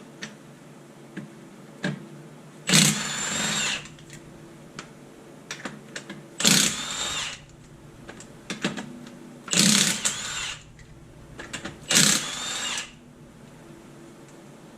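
Impact wrench loosening the wheel's lug nuts in four bursts of about a second each, with small clicks and knocks between them.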